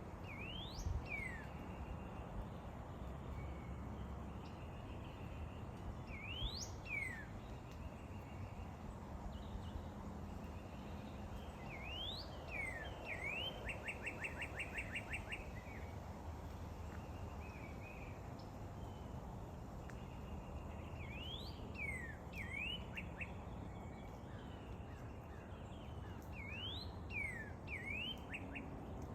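A bird calling in short phrases of sharp rising and falling whistled notes every five or six seconds, once breaking into a quick run of about ten rapid notes, over a steady low background rumble.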